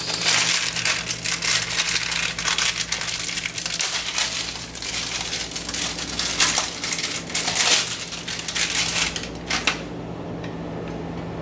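Plastic wrapping of refrigerated rolled pie crusts crinkling and crackling as it is handled and peeled away from the dough, stopping about ten seconds in. A steady low hum runs underneath.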